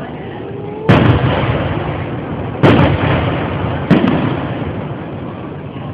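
Three aerial firework shells bursting, each a sharp boom followed by a rumbling echo that dies away over about a second.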